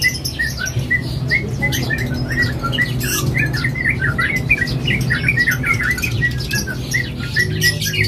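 Caged sooty-headed bulbul (trucuk) singing nonstop, a fast unbroken run of short chirping notes, the continuous 'ropel' singing the seller praises. A steady low hum lies underneath.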